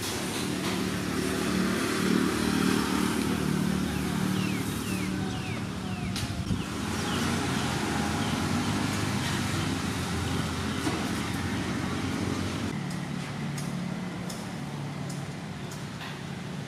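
A motor vehicle engine running, likely passing by, swelling louder twice and then easing off.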